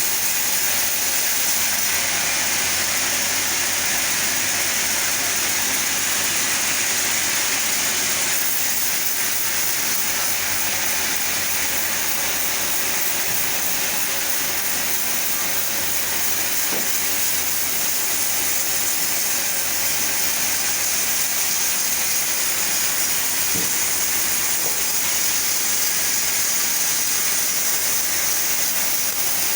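Chainsaw running steadily under load, ripping lengthwise through a sapodilla log; an even, unbroken cutting noise.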